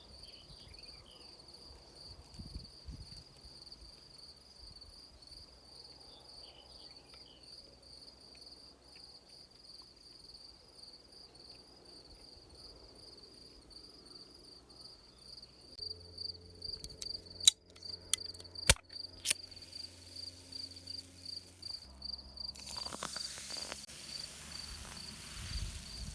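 A cricket trilling steadily: a continuous high, finely pulsed chirp. A few sharp clicks or knocks sound past the middle, and a soft hiss rises near the end.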